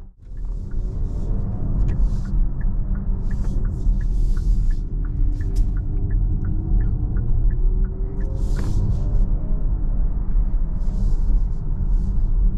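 Kia EV6 electric car driving, heard from inside the cabin: a steady low road and tyre rumble with a faint gliding hum, and occasional short bursts of hiss. For the first seven seconds or so the turn-signal indicator ticks about twice a second while the car turns.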